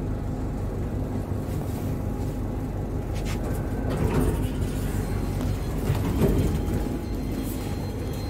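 Passenger lift travelling between floors: a steady low hum inside the cabin, with a few faint clicks.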